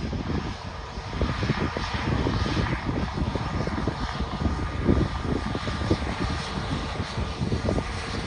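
Airbus A320neo's CFM LEAP-1A turbofans running as the airliner rolls along the runway after landing: a steady jet hiss with a faint whine, over an uneven low rumble.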